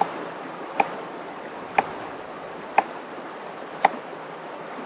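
Knife strokes on a cutting board while slicing a red bell pepper: one sharp knock about once a second. A river's steady rush runs underneath.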